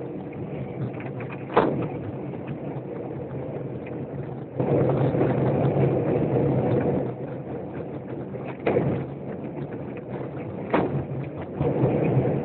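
Motorcycle engine running steadily on the road with wind noise, louder for a couple of seconds about four and a half seconds in, with a few sharp knocks.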